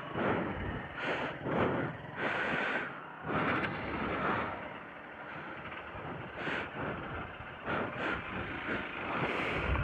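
Motorcycles running slowly on a gravel mountain road: an uneven rushing noise that swells and fades every second or so.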